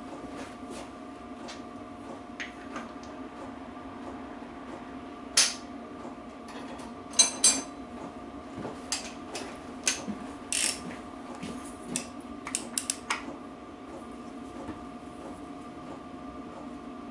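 Metal tools and parts clinking and knocking on a workbench: scattered clicks, with a few louder ringing clinks about five and seven seconds in, over a steady workshop hum.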